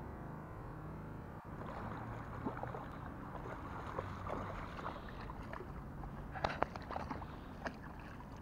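A hooked pike thrashing and splashing at the surface of shallow water, with repeated short, sharp splashes starting about a second and a half in, the loudest a little past the middle.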